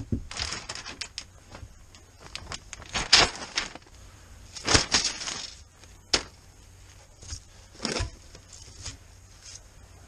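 Irregular rustling and crinkling with a few sharp knocks, the loudest about 3, 5 and 8 seconds in: handling noise as plastic-bagged pipe coils and other parts are moved about by hand.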